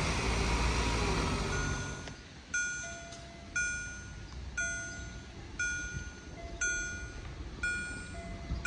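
A car's engine and tyres pull away over the crossing for the first two seconds. Then a railway level-crossing warning bell strikes about once a second, each strike ringing out and fading, signalling that a train is approaching.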